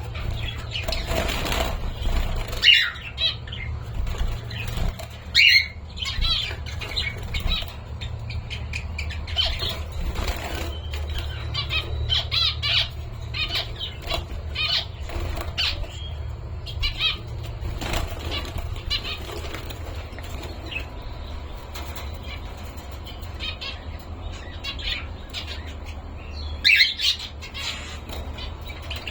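Pet cockatiels chirping and giving short squawks, with wings flapping, over a steady low hum. The loudest squawks come about 3 and 5 seconds in and again near the end.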